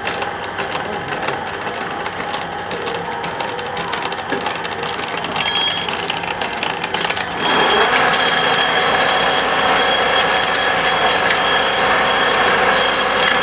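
Wood lathe running with a turning tool working the wood: rapid, irregular clicking and scraping, then about seven seconds in it grows louder and settles into a steady whine with scraping.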